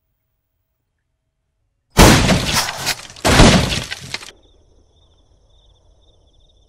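Two loud crashing impacts of a boot stamping down, one about two seconds in and another about a second later, each with a rough rattling tail that cuts off abruptly.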